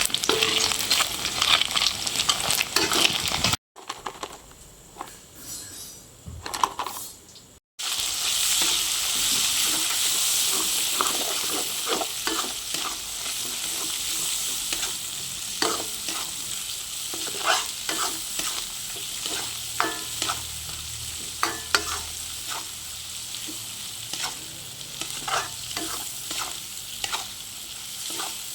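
Fish frying in hot oil, a steady sizzle with scattered short clicks and scrapes, as from a spatula in the pan. The sizzle drops to a low level for a few seconds about four seconds in, then returns.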